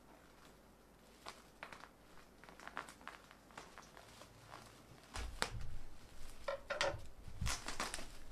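Plastic bubble wrap crinkling and rustling as it is handled around a parcel: scattered crackles at first, growing louder and busier about five seconds in, with a few low bumps from the box being handled.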